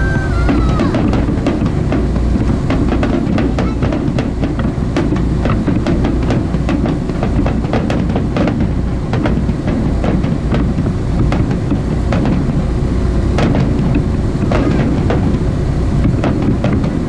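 Fireworks bursting overhead: many sharp bangs and crackles in irregular clusters, over a steady low rumble of wind and the boat's motor.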